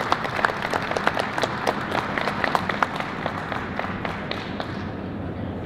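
Audience applauding, the claps thinning out and dying away about four and a half seconds in, leaving a steady background hum.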